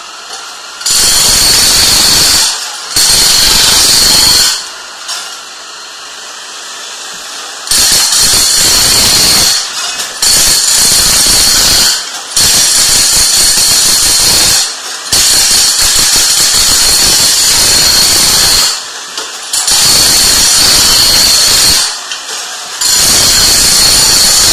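Hand-held power hammer with a wide chisel blade chipping up ceramic floor tiles, running in about eight loud runs of one to four seconds each. A steadier, quieter noise carries on between the runs.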